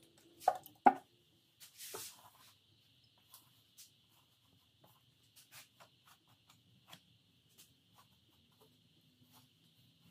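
A towel wet with acetone is wiped and rubbed across an engine block deck, giving soft scattered rubs and light taps. Two sharp knocks come just under a second in, followed by a short hiss around two seconds in.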